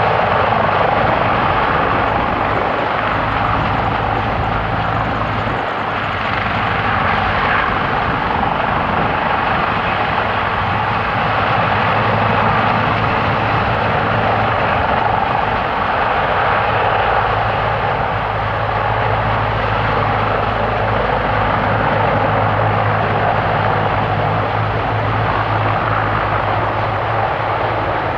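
Sikorsky CH-53E Super Stallion helicopter running steadily at an even level, the rush of its three turboshaft engines and rotor over a steady low hum.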